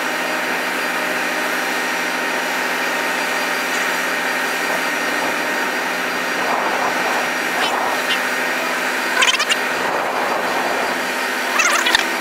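Heavy equipment engine running steadily with a constant hum. Brief voices call out a few times.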